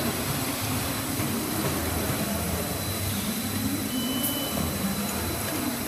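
Automatic multi-head liquid filling machine running: a steady mechanical hum with a faint, steady high whine over it.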